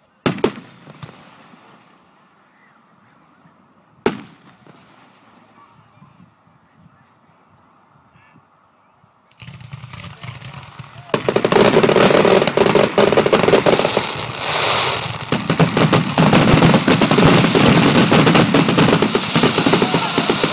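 Aerial fireworks shells bursting: a sharp bang right at the start and another about four seconds in, each with an echoing tail. From about eleven seconds in comes a dense, loud barrage of rapid bangs and crackling that keeps on.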